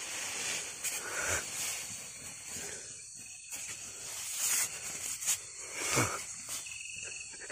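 Steady hiss of night insects, with a few soft rustles of movement.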